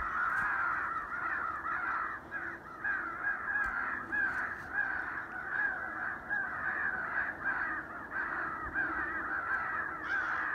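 Crows cawing without a break, many harsh caws overlapping several times a second.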